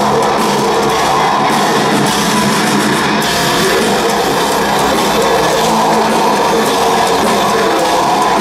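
Heavy metal band playing live: loud, dense distorted electric guitars, bass and drums, heard from within the crowd.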